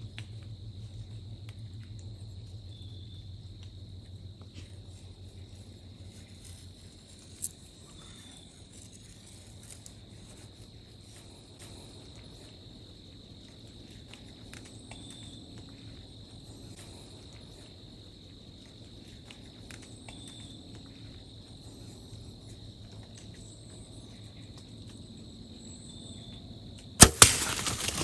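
A steady, high-pitched insect trill runs under the quiet woods. Near the end a compound bow is shot: a sudden loud crack of the string release, followed by a burst of noise.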